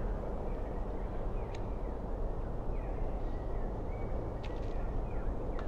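Steady murmur of a large outdoor crowd, with a few short high chirps over it.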